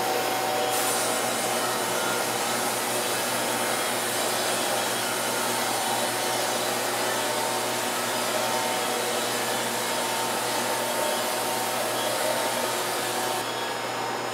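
Steady blower-like whir of sawmill shop machinery running, with the band sawmill and its dust-collection system going and a faint steady hum underneath. A brighter hiss joins about a second in and drops away near the end.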